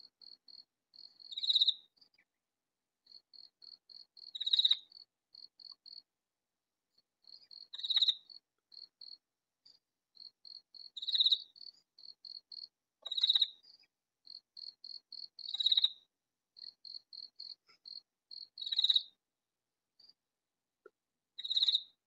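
Katydid calling: runs of short, quiet ticks, about three or four a second, broken about every three seconds by a louder call.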